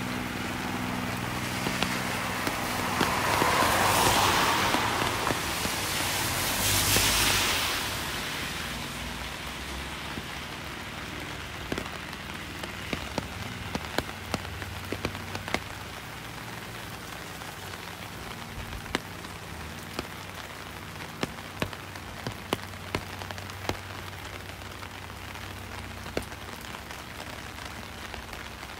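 Steady rain falling, with single drops landing as sharp ticks that come often after about eleven seconds. Two louder swells of hiss come and go in the first eight seconds.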